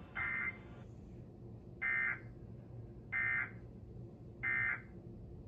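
Emergency Alert System data bursts from a TV speaker: four short, shrill electronic bursts a little over a second apart, the coded tones that close a broadcast tornado warning.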